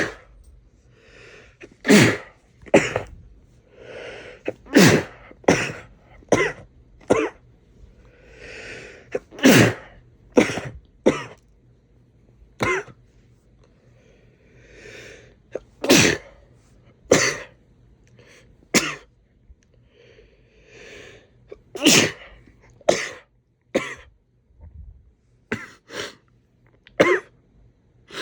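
A man sneezing over and over in a long sneezing fit: about twenty sharp sneezes, often in quick runs of two to four, several led in by a drawn-in breath.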